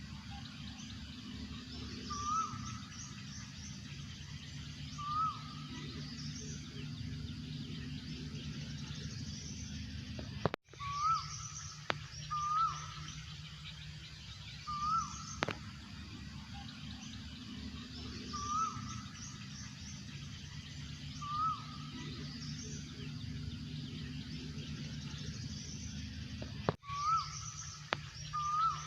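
Asian koel calling: short rising calls repeated about every two to three seconds, with smaller birds chirping faintly higher up behind it.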